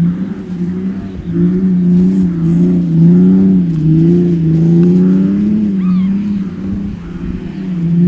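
Car engine revving hard and continuously, its pitch swinging up and down every second or so, as a car is drifted in circles on sand.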